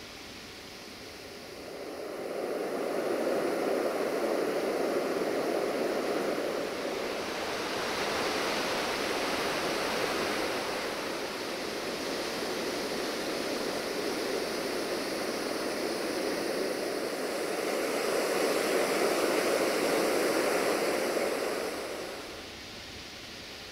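A steady rushing noise that swells up about two seconds in, holds, and drops away shortly before the end.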